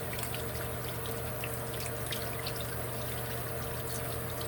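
Tap water running into a sink, splashing irregularly as hands are rinsed under it to wash off lace adhesive.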